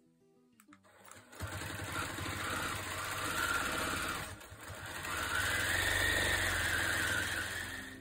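Juki mid-arm quilting machine stitching fast, starting about a second and a half in. It eases off briefly about halfway through, then speeds up again and fades near the end.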